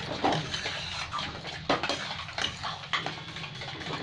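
Spatula stirring and scraping a thick rice mixture around a metal kadai: irregular scrapes and knocks.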